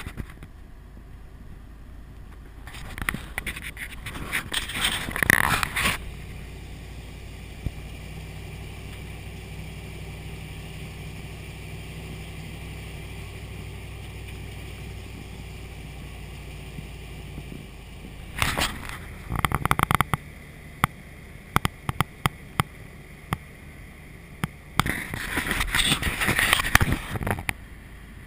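Pickup truck engine running with a steady low hum. It is broken three times by loud surges of wind buffeting the microphone, with scattered knocks and rattles in between.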